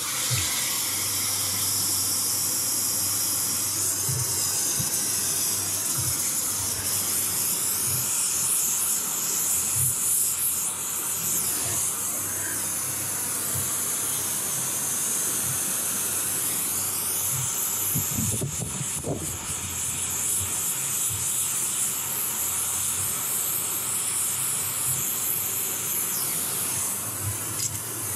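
Acetylene brazing torch burning with a steady hiss of the flame.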